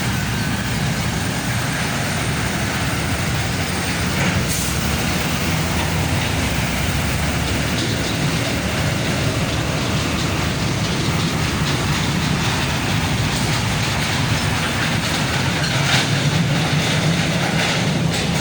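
Heavy trucks driving along a road: a steady, loud, deep rumble of engines and tyres, with a few brief knocks.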